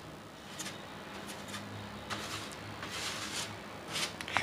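Bristle brush swept in quick strokes over the plastic inner tray and membrane of an opened computer keyboard, brushing off dust: a string of faint, short swishes at irregular intervals.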